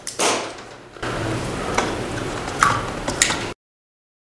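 Liquid splashing and sloshing in a plastic tub as metal parts are handled in a rust-removal bath. There is a splash near the start, then steady sloshing with three light clinks of metal, cutting off suddenly.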